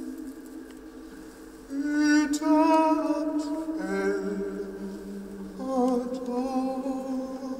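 Slow, ambient soundtrack music: low sustained drone tones, joined about two seconds in by a wavering high melody with vibrato, voice-like, that fades and returns near the end.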